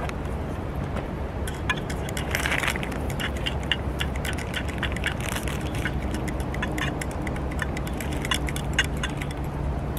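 Wood fire crackling in a barbecue pit, with light clinks of chopsticks and metal cups on steel pots: many scattered sharp clicks over a steady low rumble.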